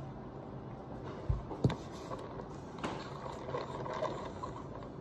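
Room tone with a steady low hum, broken by a soft thump and a sharper click about a second and a half in, and another click about three seconds in.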